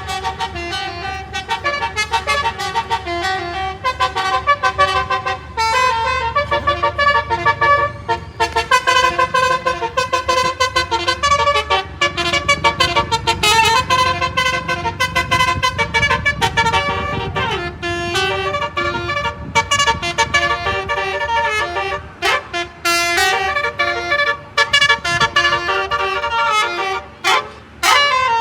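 Indonesian bus 'telolet' multi-tone musical horn playing quick, jingling tune phrases almost without pause, the notes jumping up and down in pitch, with a few short breaks near the end. The bus engine rumbles low underneath.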